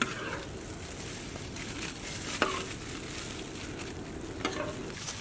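A metal ladle scraping through gravy in a large aluminium cooking pot, with sharp clinks against the pot at the start, about midway and near the end.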